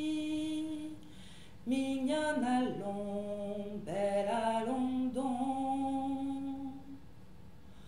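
A woman singing a slow song unaccompanied, holding long notes. One held note ends about a second in; after a short pause she sings another phrase of long notes that stops near the end.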